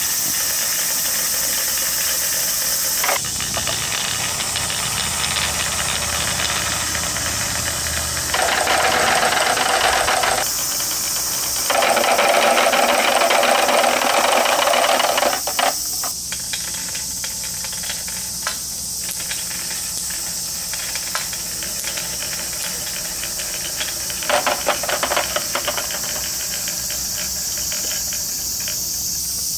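Many plastic balls rolling and rattling down a wooden HABA wavy marble slope and tumbling into a clear plastic toy car, over a steady high hiss. Past the middle the rolling gives way to scattered clicks and knocks as the balls settle.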